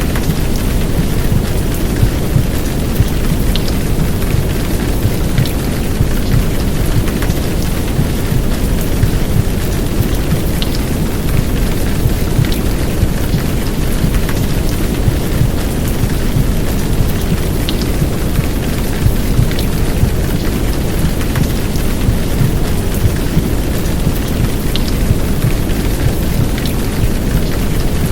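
Steady heavy downpour of rain, mixed with a deep, low womb-sound rumble and white noise. The low rumble is the loudest part, and a few sharp drip ticks stand out now and then.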